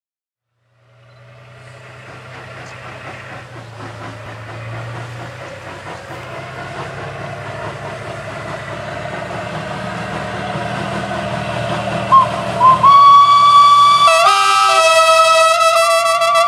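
A steam locomotive and a diesel locomotive approach, with a low locomotive rumble growing steadily louder. About twelve seconds in a whistle gives two short toots, then a long blast.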